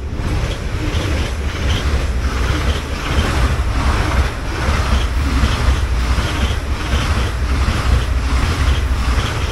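German ICE high-speed train passing close by at speed: a loud rush of wheels on rails with a deep rumble and a regular beat of about two pulses a second as the wheel sets go by. It starts suddenly at full loudness.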